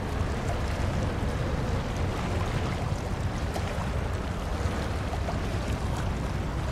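Steady wind on the microphone and choppy water washing, with a continuous low rumble and no clear single event.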